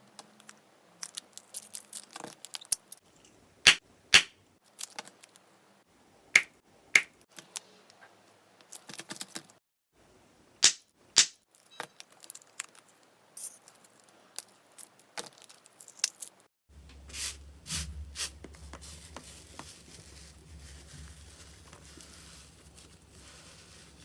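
Slime being squeezed and poked, giving scattered sharp pops and clicks. About two-thirds of the way through these change to softer, denser crackling over a faint steady hum.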